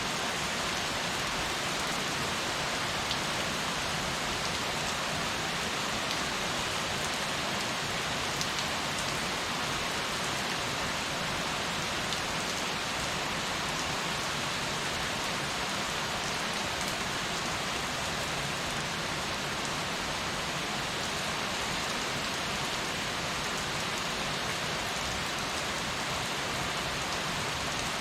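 Heavy rain falling steadily, a dense even hiss of drops hitting surfaces.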